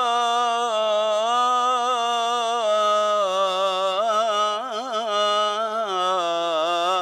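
A man's solo voice singing an Egyptian ibtihal (Islamic devotional chant), holding one long melismatic "lā" with no accompaniment. Quick ornamental turns come about four to five seconds in, and the pitch dips near the end.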